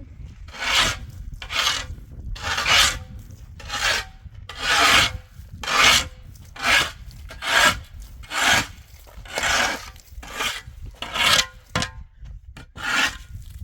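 Steady rhythmic rasping, about one stroke a second: something being scraped back and forth by hand.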